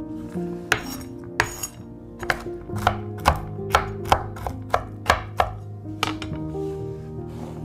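Chef's knife chopping walnuts on a wooden cutting board: a run of sharp knocks, roughly two a second and uneven, that stops about six seconds in, over soft background music.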